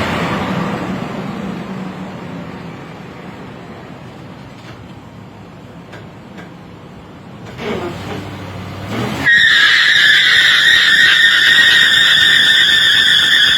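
Ford Expedition doing a burnout with its transmission stuck in second gear: the engine sound dies down, then revs up, and shortly after the tires break loose into a loud, steady, high squeal that holds to the end.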